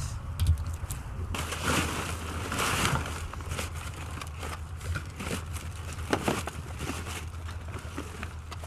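Rustling and crinkling of bags and packaging being handled, with scattered clicks and knocks, loudest between about one and three seconds in, over a steady low rumble.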